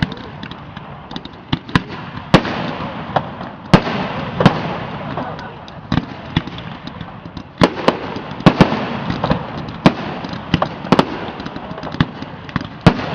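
Aerial fireworks bursting: irregular sharp bangs and pops over a steady crackle, coming thickest a little past halfway through.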